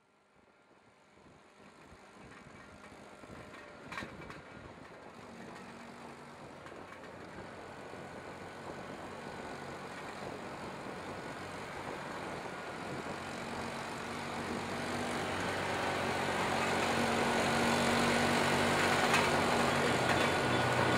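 Vehicle traffic noise fading in from near silence and growing steadily louder, a steady rumble with a faint low hum, and a single faint click about four seconds in.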